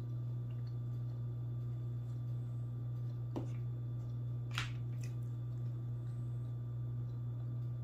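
A fork cutting into a stack of pancakes, with two light clicks of the fork against the plate, about three and a half and four and a half seconds in, over a steady low hum.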